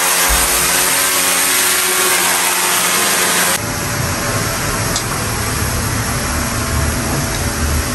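Power drill running steadily as it bores overhead into the ceiling for a cable conduit; it stops abruptly about three and a half seconds in. A steady low rumble follows, with one sharp click about five seconds in.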